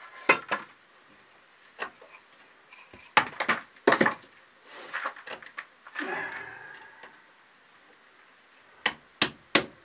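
Hand tools clinking and knocking on wood and masonry as a door frame is worked on, with a short scrape about six seconds in. Near the end comes a quick run of sharp hammer taps.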